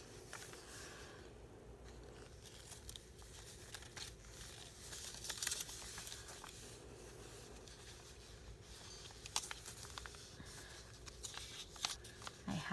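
Paper being handled: faint rustling and tearing of paper with small clicks, a little louder about five seconds in.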